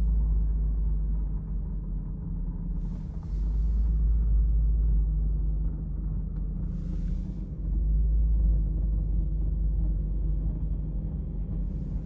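A strange noise in the cabin of a Jaguar XF 4.2 supercharged, heard best near the windscreen, whose source is unknown: a low rumble that swells and eases over a steady hum, broken by a brief hiss about three and seven seconds in.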